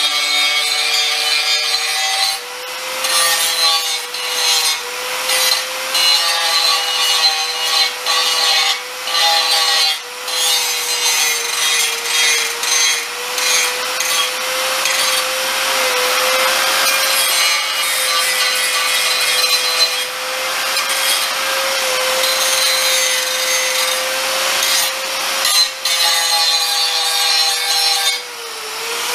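Handheld electric grinder working an aluminum skid plate: a steady high motor whine under a harsh grinding rasp that eases off briefly now and then as the wheel lifts from the metal.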